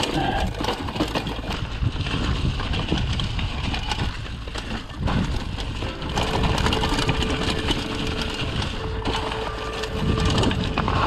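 Yeti SB95 mountain bike riding rough singletrack: tyres crunching over dry leaves and rocks, with frame and chain rattle and knocks and a low rumble of wind on the microphone. About six seconds in, a steady hum joins and carries on.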